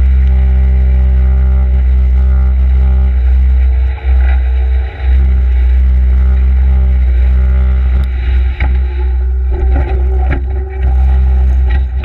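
Case skid steer loader's diesel engine running steadily, dipping briefly around four and five seconds in, with a few knocks in the second half.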